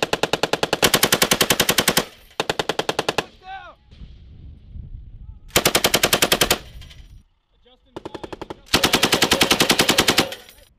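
Belt-fed machine gun firing several rapid automatic bursts of about one to two seconds each, with pauses of about a second or two between them.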